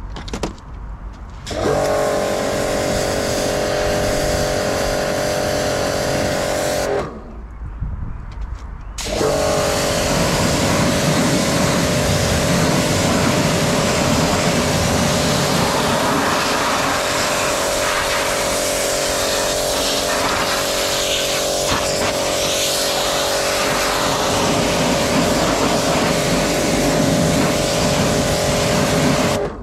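Bormann Pro BPW 5000 pressure washer running under the trigger, its motor and pump humming steadily with a hissing spray. It stops about seven seconds in, and after a two-second pause it starts again and runs on.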